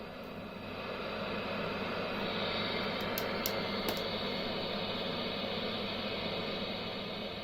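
Marshall JVM410C tube guitar amp idling at extreme gain settings with selected preamp tubes, heard very close up: a steady hiss with a low mains hum under it. The noise swells over the first couple of seconds and eases off near the end, with a few faint clicks in the middle.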